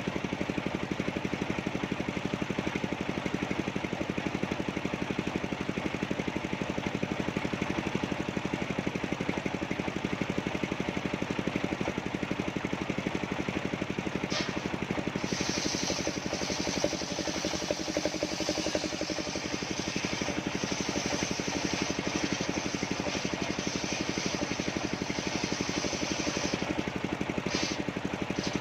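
Engine of a mobile circular sawmill running steadily. About halfway in, a high hiss joins it for roughly twelve seconds, typical of the saw blade cutting through coconut wood, then drops away near the end.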